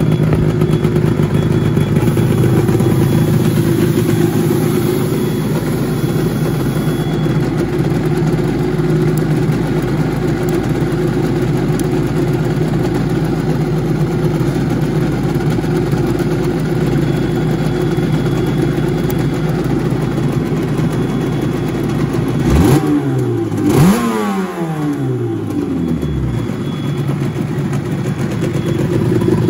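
Suzuki RG500 Gamma's square-four two-stroke engine idling steadily, with two quick throttle blips about three-quarters of the way through, the revs rising sharply and falling back to idle.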